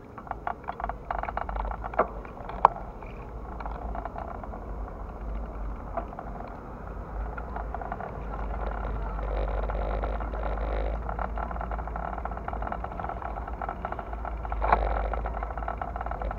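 Low rumble on the microphone with scattered clicks and rattles, densest in the first few seconds, over a steady outdoor hum. A sharp knock comes about two and a half seconds in and another near the end.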